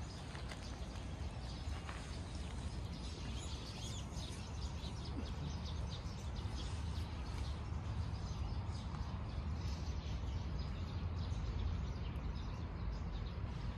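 Outdoor ambience: a steady low background rumble with faint, scattered bird chirps throughout.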